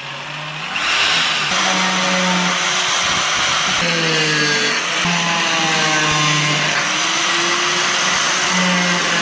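Corded drill running briefly, then an angle grinder with a cutting disc cutting into a bonsai pot, its motor pitch sagging and rising as the disc bites and eases off.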